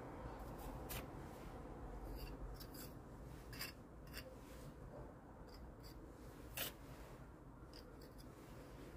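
Faint, irregular scrapes and light ticks of a hand pointing tool pressing and smoothing mortar into the joints between cobbles and bricks.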